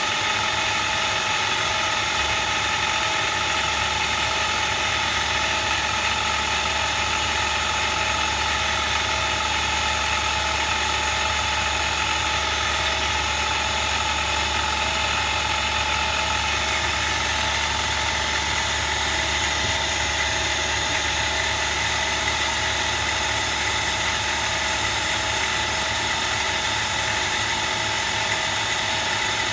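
A machine running steadily with a constant whine made of several steady tones, a low hum joining in about two seconds in.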